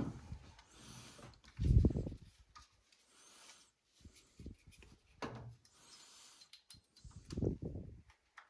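Hands working on the dryer's parts: rubbing and scraping with a few dull thumps, the loudest about two seconds in.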